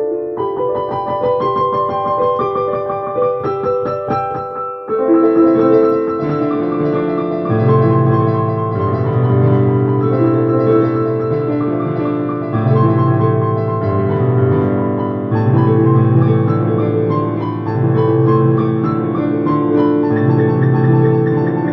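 Piano music: a melody over held chords, with a low bass part coming in about seven seconds in.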